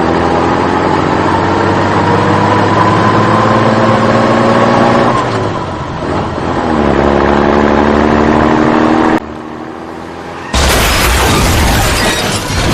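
Vehicle engine revving, its pitch slowly climbing, with a dip about halfway through. It cuts off abruptly about three quarters of the way in, and after a short quieter gap a loud, noisy sound takes over near the end.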